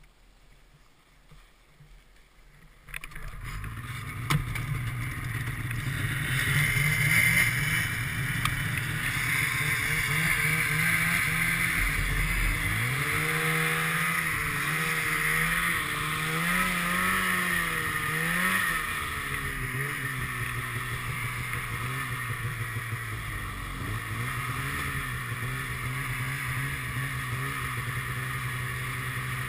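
Snowmobile engine starting to pull hard about three seconds in, then running under throttle, its pitch rising and falling repeatedly for several seconds midway before settling to a steady run.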